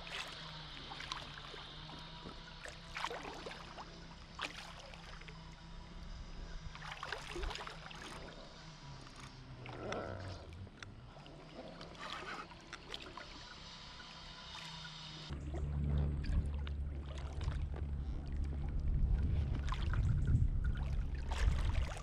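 Water splashing and sloshing as a hooked wels catfish rolls and thrashes at the surface beside a float tube, in scattered short splashes. About two-thirds of the way through, a heavy low rumble comes in and stays, louder than the splashing.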